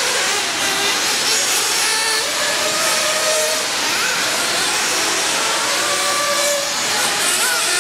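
Radio-controlled off-road buggies racing on a dirt track: a steady hiss with several high motor whines that rise and fall as the cars accelerate and brake.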